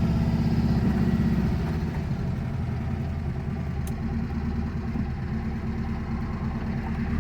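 VW Brasília's 1600 air-cooled flat-four engine running on the road, heard from inside the cabin. The engine note drops about a second and a half in as the throttle eases off, runs lower for a while, then swells again right at the end.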